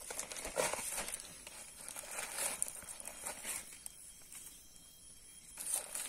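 Roast chicken being handled, torn and cut with a knife on a banana leaf: irregular crinkling and tearing noises with the leaf rustling, quieter for a moment about four seconds in before picking up again near the end.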